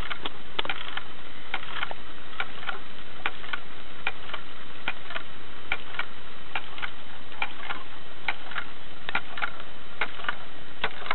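Small homemade hydraulic ram pump cycling on its own: its waste valve, an upside-down well foot valve, snaps shut with a sharp click about twice a second, each click a water-hammer surge that drives water up the delivery pipe. A steady hiss runs underneath.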